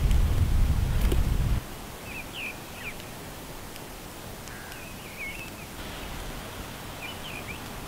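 Small birds chirping in woodland, short rising-and-falling calls every second or so. For the first second and a half a low rumble lies under them, then cuts off abruptly.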